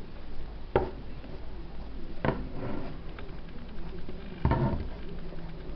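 Three short knocks and handling noises of objects set down and moved on a workbench, the last a little longer and scraping, over a faint low hum.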